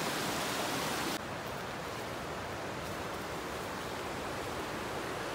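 Steady rushing of a waterfall and rocky stream, an even hiss without pitch; it drops a little in level and brightness about a second in.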